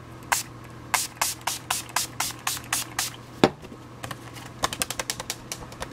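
Mini pump bottle of Urban Decay All Nighter setting spray misting the face in a quick run of about ten sprays, roughly three a second. A single knock follows about halfway through, then a faster run of fainter ticks near the end.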